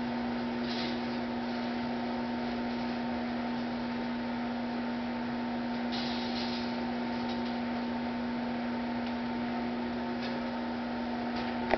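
Microwave oven running with a steady electrical hum, a CD inside it giving a few brief crackles as its metal layer arcs. A sharp click comes right at the end.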